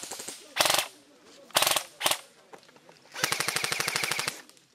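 Airsoft gun firing at close range: three single shots, then a rapid full-auto burst lasting about a second, near the end.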